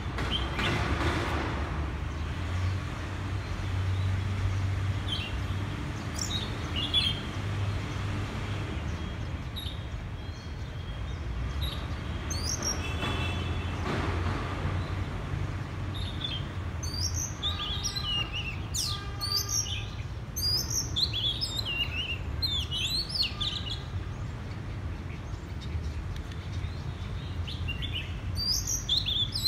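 Oriental magpie-robin singing varied whistled and chirping phrases, sparse at first and much busier through the second half, over a steady low rumble.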